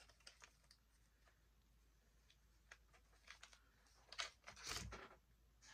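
Mostly near silence with a few faint clicks, then about four seconds in a short rustle and crinkle as the torn wrapper of a military energy gum packet is handled.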